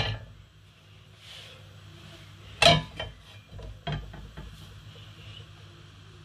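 A frying pan clattering on the metal grate of a gas hob: a sharp ringing clang about two and a half seconds in, then a few lighter knocks, over a steady low hum.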